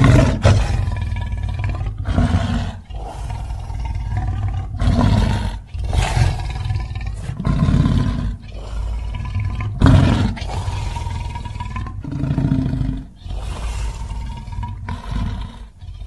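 Custom Scorpius rex (E750) creature sound effect: a string of about eight roars, each a second or two long with short breaks between. The loudest roars come at the start and about ten seconds in.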